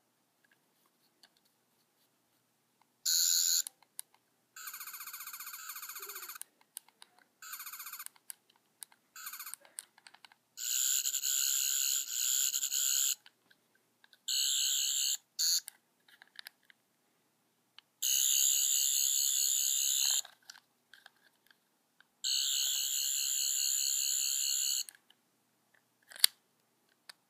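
Toy 10th Doctor sonic screwdriver's electronic sound effect, a high, rapidly pulsing buzz played in about nine separate bursts of up to three seconds each as its button is pressed and released, with small clicks between them.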